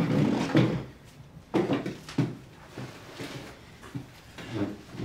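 Knocks and scrapes of wooden furniture: a loud scraping sound at the start, then sharp knocks about one and a half and two seconds in, and a few fainter ones after.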